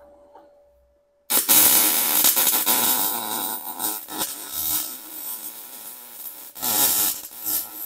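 MIG welding arc from an R-Tech MIG180 running on freshly fitted 0.8 mm wire: a loud, continuous crackle that starts suddenly about a second in and runs for about six and a half seconds, easing a little in the middle and stopping just before the end. Just before the arc strikes there is a faint steady hum. The crackle is judged a better noise with the new wire.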